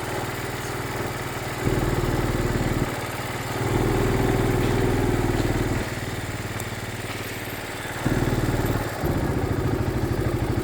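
Engine and road noise heard from inside a slow-moving vehicle, a steady low drone that grows louder for a second or two at a time, four times over.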